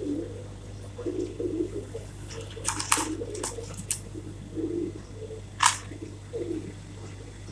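Dry whole spices and a plastic tub handled by hand, giving a few sharp clicks and rustles about three seconds in and again near six seconds. Low, repeated cooing-like calls and a steady low hum run underneath.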